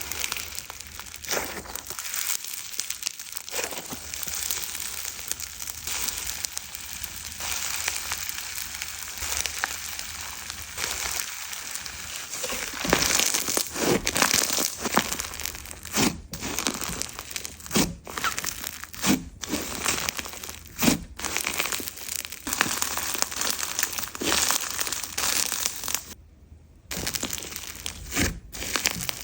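Slime being squished and pressed by hand, giving a dense crackling with many sharp pops. It pauses briefly near the end.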